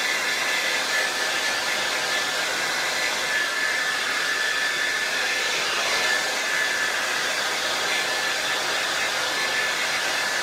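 Handheld hair dryer running steadily: a constant blowing noise with a steady high whine from its motor.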